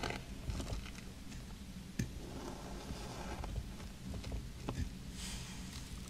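Kinetic sand being cut and scored with a thin pointed plastic tool: soft, grainy crumbling and scraping as the tip drags through the moulded sand, with a few sharp ticks along the way.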